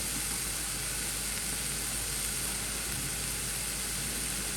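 Food sizzling steadily as it fries in a hot pan.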